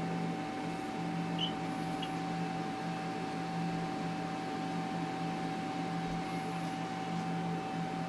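Steady electrical hum and hiss with a constant high whine, the background noise of the equipment in an ultrasound exam room; no heartbeat rhythm stands out.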